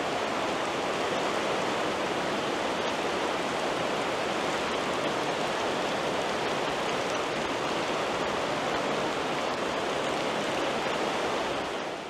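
Steady rush of water running high through a cave, an even hiss-like roar that holds one level and fades out near the end.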